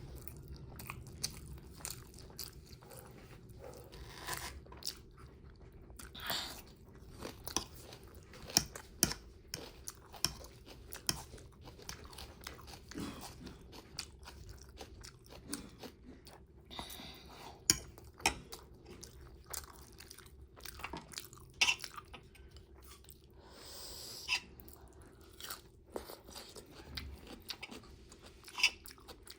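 Close-miked eating: chewing with many sharp, crunchy bites at irregular intervals.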